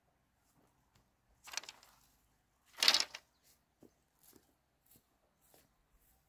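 Split-bamboo slats rustling and scraping as they are gathered up: two louder scrapes about a second and a half apart, the second the louder, then a few light knocks.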